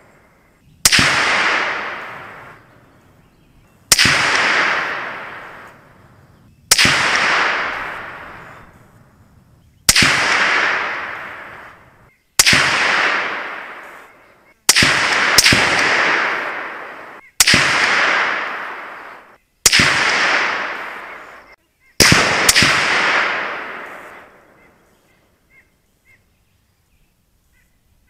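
Wilson Combat 20-inch 5.56 AR-15 rifle firing about eleven shots, each a sharp crack followed by a long echoing decay. Most shots come two to three seconds apart, with two quick pairs about half a second apart; the last shot dies away a few seconds before the end.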